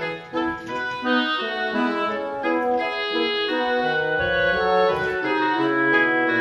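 Instrumental background music: a light tune of short, changing notes over a bass line.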